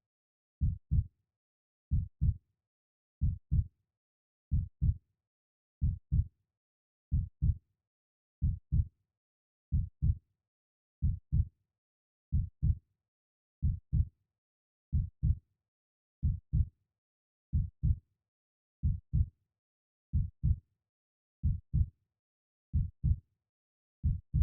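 A heartbeat: each beat is a low double thud (lub-dub), repeating slowly and evenly at about 44 beats a minute, with nothing heard between the beats.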